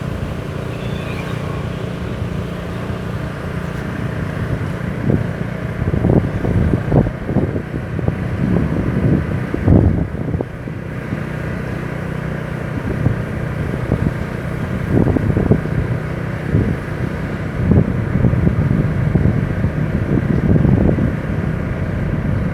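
A vehicle engine running steadily as a low hum, with irregular gusts of wind buffeting the microphone.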